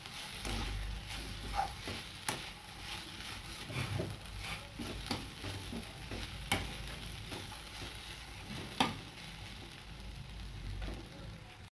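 Soya chunks and vegetables sizzling as they fry in a kadai while being stirred, with irregular knocks and scrapes of the stirring utensil against the pan.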